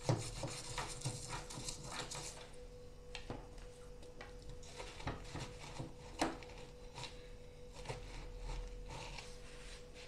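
A hand scrubbing inside a front-load washing machine's drain-pump filter housing with hot water and detergent: intermittent rubbing and scraping, with a few sharp knocks, the loudest about six seconds in. A faint steady hum lies underneath.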